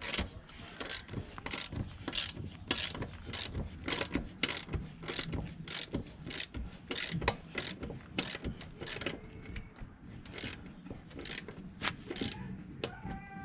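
Hand ratchet wrench clicking in a steady run of strokes, a few clicks a second, as a nut on the minibike's rear wheel and chain adjuster is tightened.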